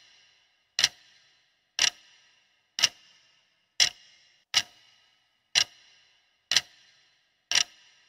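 Ticking-clock countdown sound effect: sharp ticks about once a second, each with a short ring, counting down the answer time.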